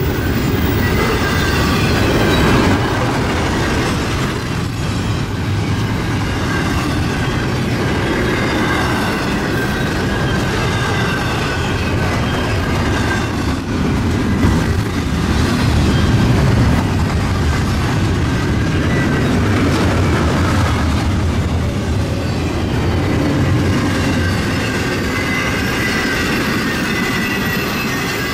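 Union Pacific freight train's cars rolling past at speed, a steady loud rumble of wheels on rail with a thin wheel squeal drifting in and out.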